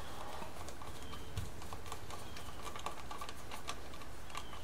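Light, scattered clicks and taps of a power wire being fastened to a three-way switch's terminal.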